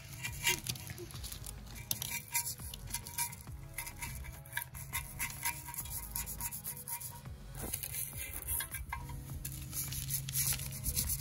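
A small stiff-bristled brush scrubbing the wet aluminum case of a Vortech MaxFlow Power Cooler intercooler in quick, irregular scratchy strokes. Faint background music underneath.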